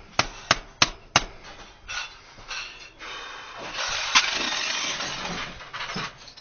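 A door being banged on and forced: four sharp bangs in quick succession, then about two seconds of scraping and rattling with one more bang in the middle.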